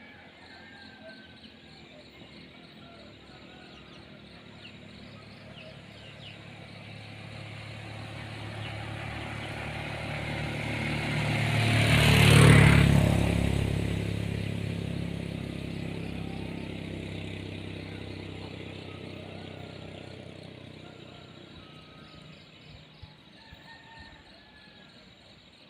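A motor vehicle drives past: its engine grows louder over several seconds, is closest about twelve seconds in, and then fades away again.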